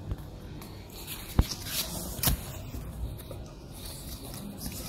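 Cardboard box being handled: light scraping and rustling, with a sharp tap about a second and a half in and a short louder scrape about a second after it.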